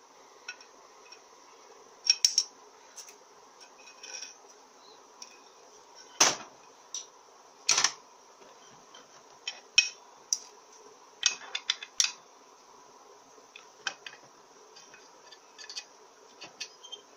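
Irregular metallic clicks and clinks as an aluminium transmission valve body and small parts are handled on a ribbed metal tray, with two heavier knocks about six and eight seconds in.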